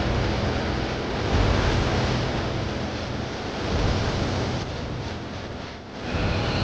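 Small wooden boat under way: its stern-mounted engine runs steadily under the rush of the bow wave and wind on the microphone, dipping briefly near the end.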